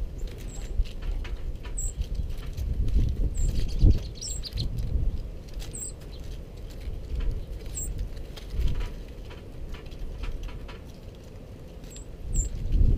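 Small songbirds feeding on seed on a snow-covered wooden porch board: beaks and feet tapping and pattering on the wood, brief wing flutters, and short high chirps every second or two, over an uneven low rumble.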